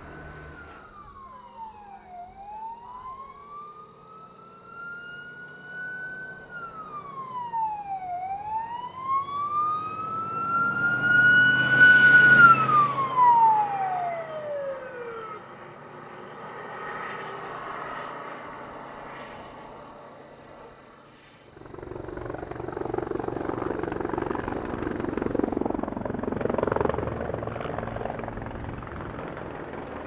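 Fire truck siren wailing, falling and rising in pitch twice, loudest about twelve seconds in, then winding down to a low pitch and stopping. The truck's engine fades away, and after an abrupt change about two-thirds through, a steady rushing noise takes over.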